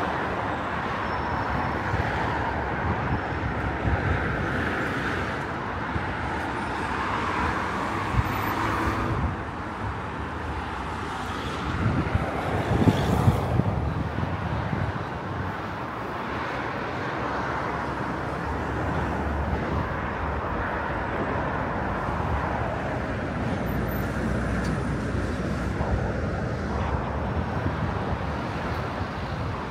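Town street ambience: road traffic going by in a steady wash of noise, with a louder stretch about halfway through.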